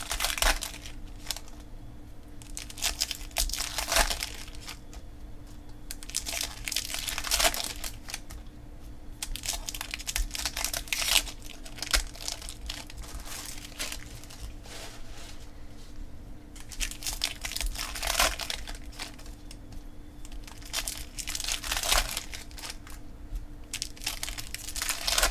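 Foil wrappers of Bowman baseball card packs crinkling and tearing as the packs are ripped open, in repeated bursts with short pauses between.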